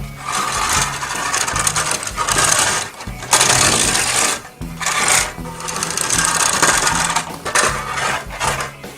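Tracks of a Driven by Battat toy bulldozer rolling with a steady mechanical clatter as it is pushed along, in several runs with brief pauses.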